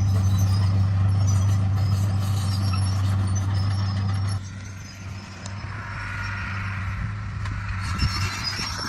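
D41 bulldozer's diesel engine running at a steady pitch, dropping off sharply in loudness a little before halfway, after which a fainter engine hum carries on under a higher mechanical grinding noise.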